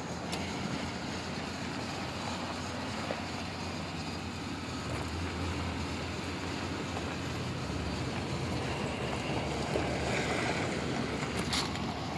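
Steady low rumble with wind on the microphone, with a brief click near the end.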